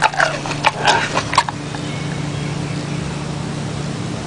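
A gorilla's short, sharp mouth noises close to the microphone, quickly repeated for about a second and a half, then giving way to a steady low hum.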